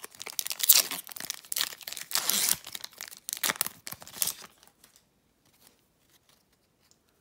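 A trading-card pack's wrapper being torn open and crinkled by hand for about four seconds, then the sound dies away.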